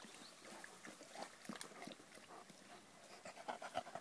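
Faint sounds of large dogs swimming in a pond: breathing and water moving around them, heard as a scatter of small, irregular ticks and soft splashes.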